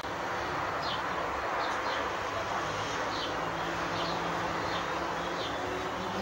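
A small bird chirping repeatedly, with short high downward chirps about once a second, over a steady rushing hiss.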